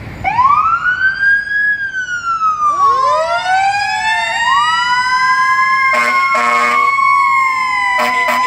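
Fire engine's sirens winding up and wailing, several rising and falling tones overlapping and then settling into a steady high tone. From about six seconds in, a lower horn sounds in short, repeated blasts over the siren.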